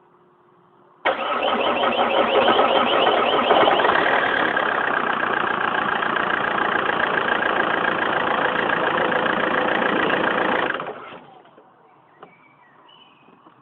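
Vauxhall Vectra 1.9 CDTi diesel engine being started with the key. The engine sound comes in suddenly about a second in, holds loud and steady for about ten seconds, then dies away.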